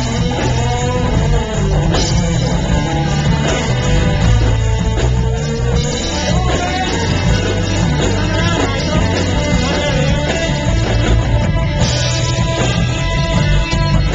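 Loud rock music with singing, guitar and a heavy bass line, picked up through a small camcorder's microphone.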